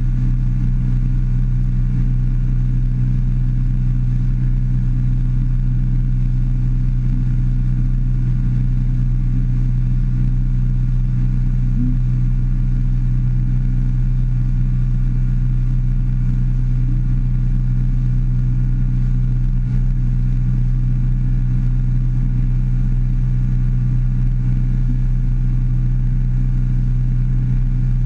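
A 150 hp outboard motor running steadily at cruising speed, pushing the boat along on the plane, a constant low hum with no change in pitch or level.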